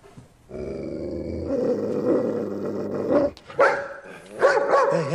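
German shepherd growling steadily for about three seconds, then barking several times: an aggressive warning, as if about to attack.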